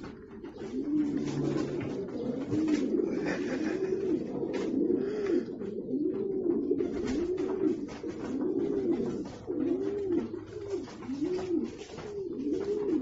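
Pigeon cooing over and over, each coo a short low rise and fall, about one a second.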